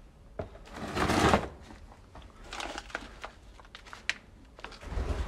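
Debris crunching and rustling in a run of irregular crunches, the loudest about a second in, with more near the middle and end.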